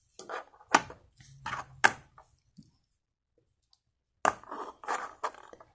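Small sharp clicks and taps of miniature train ornament cars being handled and knocked against each other. There are two single clicks in the first two seconds, then a quick run of several clicks about four seconds in.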